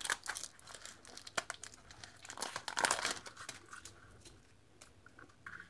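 Intermittent crinkling and rustling of packaging as a spool of punched satin ribbon is handled. A few louder crackles come about two to three seconds in, and it goes nearly quiet after about four seconds.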